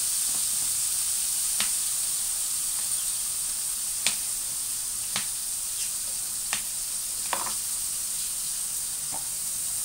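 Battered mushrooms frying in hot oil in a wok, a steady high sizzle. About six sharp utensil taps are scattered through it.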